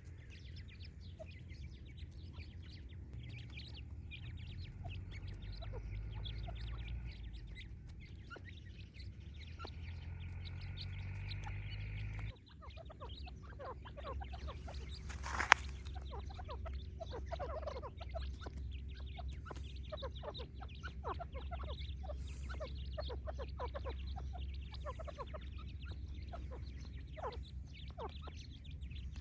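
Partridge chicks and adults calling: many short, high peeps and chirps over a steady low rumble. The sound changes abruptly a little before halfway through, and there is one sharp click about halfway through, the loudest moment.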